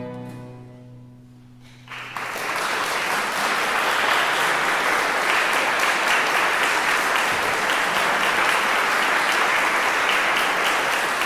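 The final chord of a baroque trio sonata on violins, cello, theorbo and harpsichord fades away. About two seconds in, audience applause breaks out and continues steadily.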